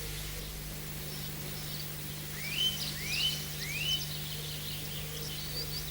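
Songbirds chirping, with three loud rising whistled calls a little over half a second apart in the middle, over a steady low hum.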